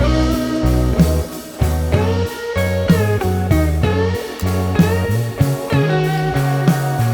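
Background music: a guitar-led instrumental with a sliding guitar melody over a stepping bass line.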